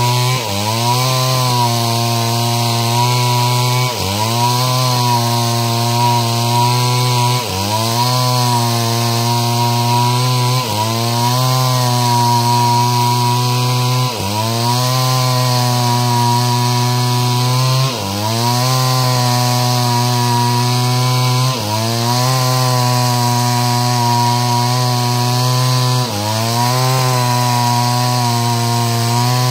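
Stihl two-stroke chainsaw running at high revs while cutting wood lengthwise into planks. Every three to four seconds its pitch dips and climbs back as the chain bites and eases.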